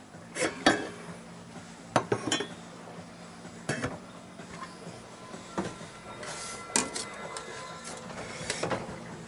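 Pots, dishes and cutlery clinking and knocking in separate irregular clatters, about eight of them, over a faint steady low hum.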